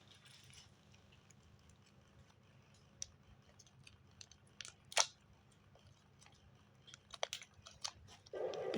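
Scattered small clicks and crackles of packaging and containers being handled and opened, the loudest about five seconds in and several more close together near the end.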